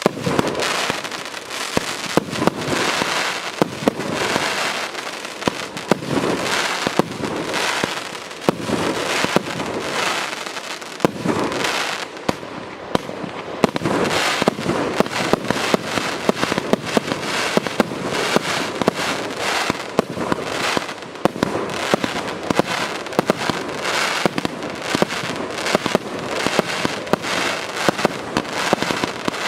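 A 108-shot, 30 mm (1.2") consumer firework cake firing a rapid, continuous stream of shots, the launches and bursts overlapping, with a brief thinning about eleven seconds in.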